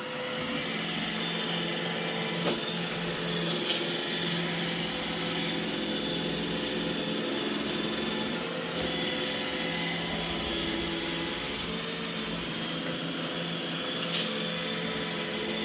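iRobot Roomba E6 robot vacuum running, a steady whir of its motors and brushes with a few short knocks.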